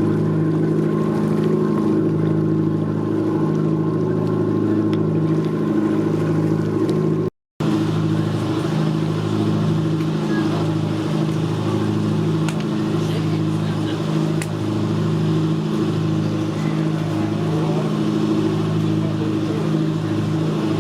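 Boat engine running steadily at an even speed. It cuts out completely for a split second about a third of the way through, then resumes unchanged.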